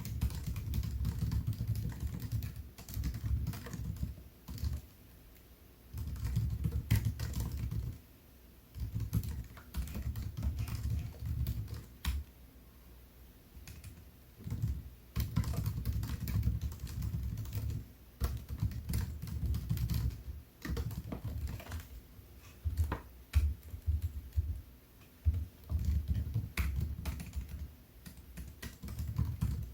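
Typing on a MacBook Air keyboard: runs of rapid key clicks lasting a few seconds each, broken by short pauses.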